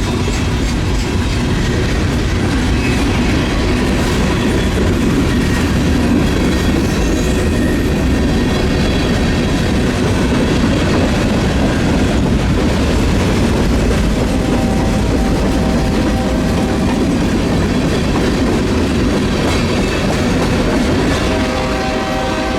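Union Pacific freight train rolling past slowly, its cars' wheels clattering steadily over the rail joints.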